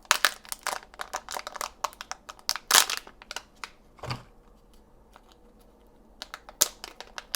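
Crinkling and crackling of the plastic wrapping of a Kinder Joy egg's toy as it is torn open and handled, in quick bursts over the first four seconds and again near the end. A soft thump about four seconds in.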